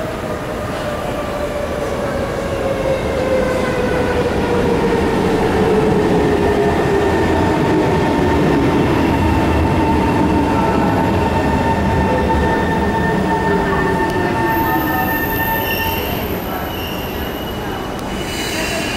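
SMRT C151 metro train running into the station and braking to a stop, its motor whine falling steadily in pitch over the rumble of wheels on rail. A short hiss comes near the end.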